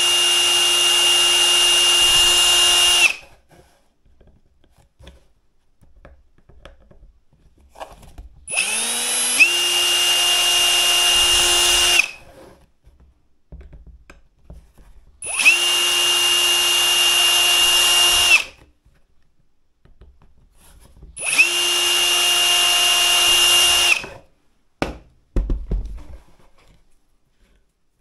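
Power drill boring small pilot holes in a scooter mudguard: four runs of about three seconds each, the motor spinning up to a steady high whine every time, with short pauses between. A few light knocks near the end.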